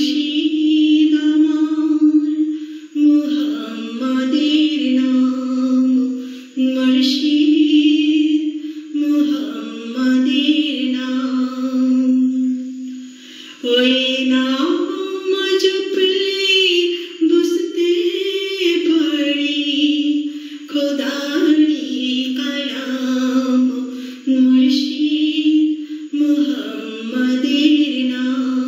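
A woman singing a Bengali Islamic devotional song unaccompanied, in long held, gliding notes with brief pauses for breath.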